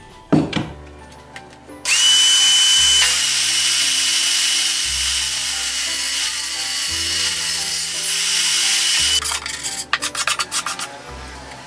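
Electric drill boring a hole in wood. The motor starts suddenly about two seconds in, runs steadily with a whine for about seven seconds, then stops, followed by a quick run of clattering knocks.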